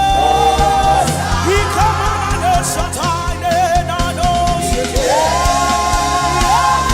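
Live gospel worship music: singers over a band with drums, one voice sliding up into a long held note about five seconds in.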